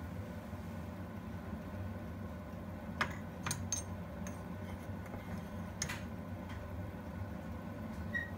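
A low steady hum with a few light clinks of a spoon tapping against a plate while turmeric is shaken onto raw fish pieces, about three seconds in and again near six seconds.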